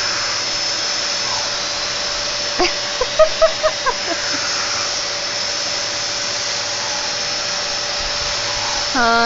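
Vacuum cleaner running steadily, a constant hiss with a steady whine. About three seconds in, a quick run of five or six short squeaky sounds rises above it.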